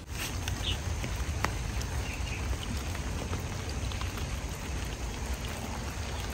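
Steady rain falling on a vegetable field, with single drops striking close by now and then over a low, even rumble.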